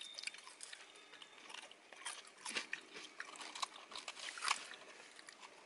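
A person chewing fries with mayonnaise close to the microphone: faint, irregular wet mouth clicks. A small plastic fork picks at the fries in a paper tray.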